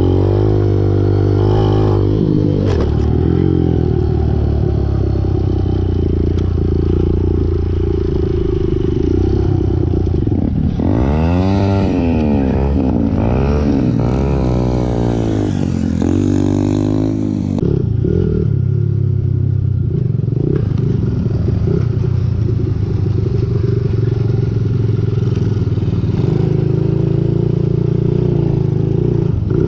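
A pit bike's small single-cylinder engine runs under the rider as it is ridden around a dirt track. Midway through, the revs rise and fall repeatedly, then settle into a steadier drone.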